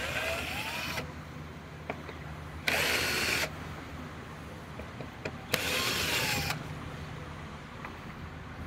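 Cordless drill/driver running in three short bursts of about a second each, its motor pitch rising and falling as it backs out the screws holding the air filter housing shut.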